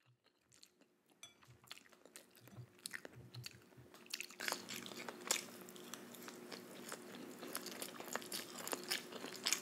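Close-miked chewing and crunching of a veggie chicken and broccoli stir fry, with many sharp clicks. It begins with about a second of near silence and gets louder from about halfway through.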